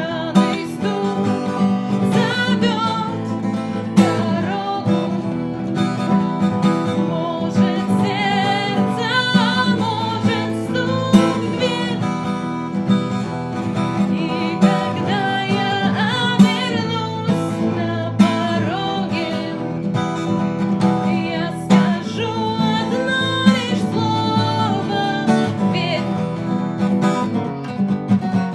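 Acoustic guitar strummed in a steady rhythm with sharp percussive knocks on the strings, with a singing voice over it.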